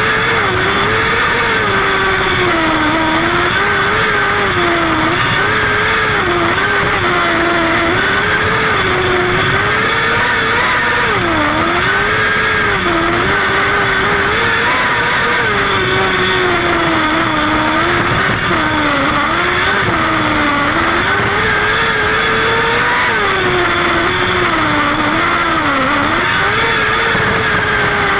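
Micro sprint race car's engine heard from on board, loud and constant, its pitch climbing and dropping every few seconds as it accelerates down the short straights and backs off into the turns.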